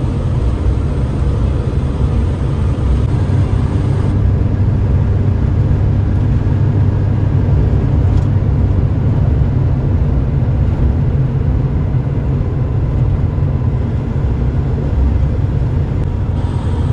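Heavy truck driving at highway speed, heard from inside the cab: a steady low rumble of engine and tyres.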